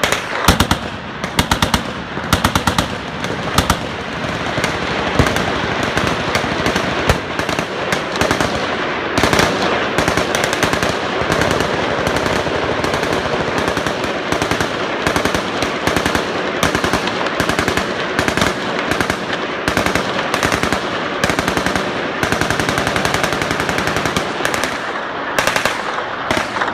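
Several machine guns firing at once: overlapping bursts of automatic fire that merge into a near-continuous stream of shots.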